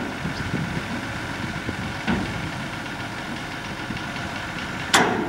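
A tractor engine idling steadily, with a knock about two seconds in and a sharp, louder knock near the end.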